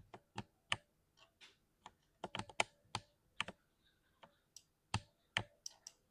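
Keys clacking on a 60% mechanical keyboard, typed in an irregular rhythm of a few strokes a second with a brief lull about four seconds in.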